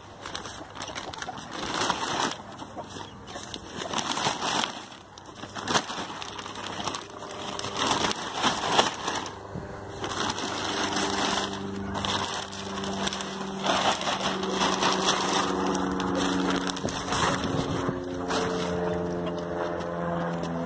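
Plastic tarp crinkling and rustling in irregular bursts as a load of cut grass is tipped out of it. A low droning hum of several steady tones joins about halfway through.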